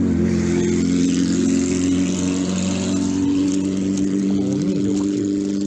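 Mid-size motorcycle with a modified, aftermarket muffler running at a steady idle, with a rushing noise over its first few seconds.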